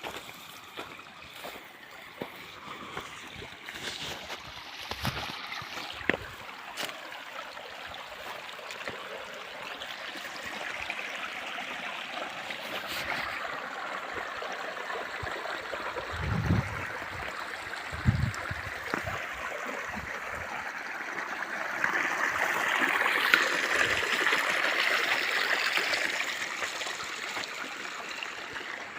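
Water of a stream flowing and trickling, growing gradually louder and loudest a few seconds before the end, with two dull low thumps midway.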